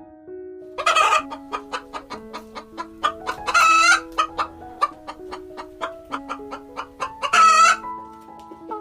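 Chickens clucking in quick, short notes, with three louder drawn-out calls about one, three and a half and seven and a half seconds in, over soft piano music.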